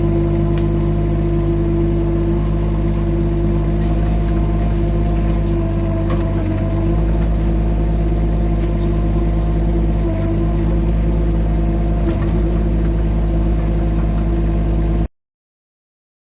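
Rippa R15 mini excavator's engine running steadily at a constant speed, a loud drone with several fixed pitches; the sound cuts off abruptly near the end.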